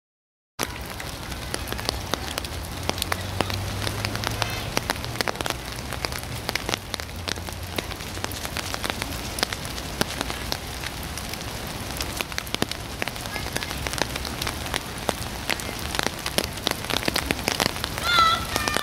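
Rain pattering steadily, with many small sharp taps close to the microphone. A voice calls out near the end.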